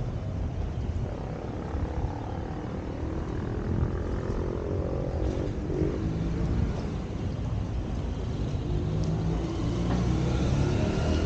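Street traffic: a steady low rumble of passing vehicles, with an engine's hum coming through twice, growing louder toward the end.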